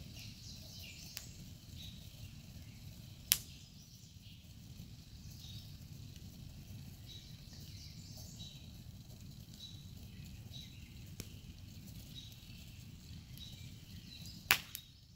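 Campfire burning around a soda can, crackling, with two sharp pops, one about three seconds in and one near the end, over a low steady rumble.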